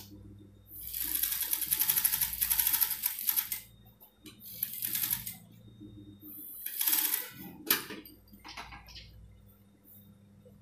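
TYPICAL industrial single-needle lockstitch sewing machine stitching fabric in short runs: one run of about three seconds, then two shorter bursts, a sharp click and a few brief stitches, over a steady low hum.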